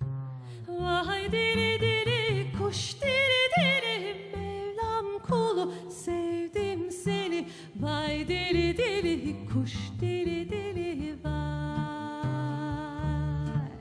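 A woman singing a Turkish folk song, her voice bending and wavering through ornamented turns, over plucked double bass notes.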